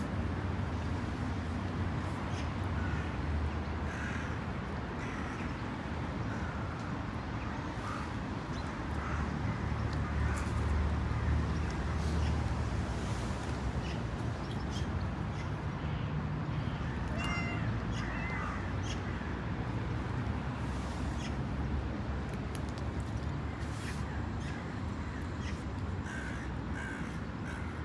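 Short animal calls, scattered and one clearer call about two-thirds of the way through, over a steady low rumble of background noise.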